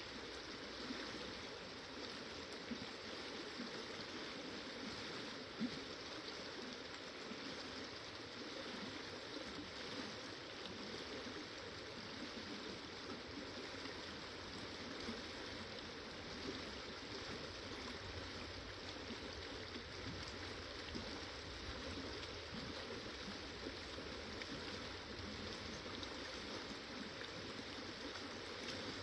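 Steady rushing of a fast-flowing river over its rocky bed, with a few faint small knocks.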